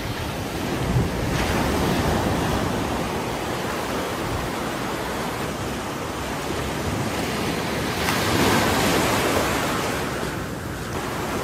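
Ocean surf breaking and washing in, with wind noise on the microphone; the rush of water swells about two seconds in and again, loudest, around eight seconds in.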